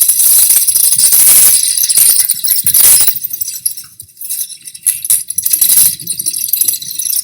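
Vampire bat sound effect: a rapid, high-pitched chittering made of many quick clicks and squeaks, thinning out briefly around the middle.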